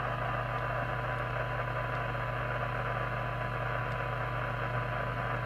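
Cobra UK29LTD ST CB radio's receiver audio: a steady 1 kHz test tone in a wash of hiss over a low hum. The radio is receiving a very weak test signal, about 0.3 microvolts, while its front-end coils are being peaked for receive alignment.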